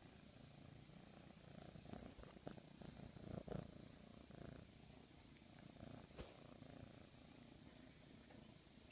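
House cat purring steadily up close, a soft, low, pulsing rumble. A few soft knocks break in around the middle, the loudest about three and a half seconds in.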